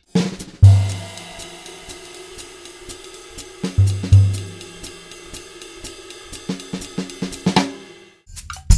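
Acoustic drum kit played in a jazz style: a steady ride-cymbal and hi-hat pattern with light snare and a few deep, ringing drum hits, then a short fill that stops shortly before the end.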